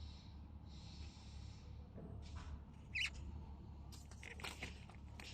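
Quiet room noise with a faint low hum, a soft breath-like hiss near the start, and a few small clicks and taps later on.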